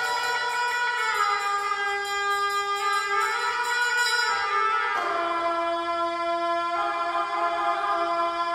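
Tibetan gyaling (double-reed ritual horns) played by monks: a slow melody of long held notes, each stepping to a new pitch about every two seconds.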